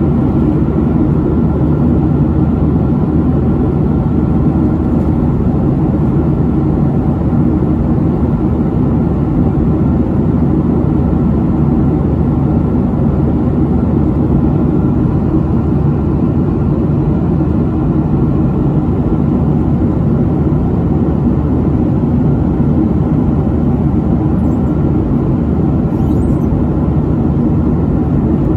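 Steady jet engine and airflow rumble heard from inside the passenger cabin of a Boeing 737 in flight. It is loud and even, low-pitched, and does not change.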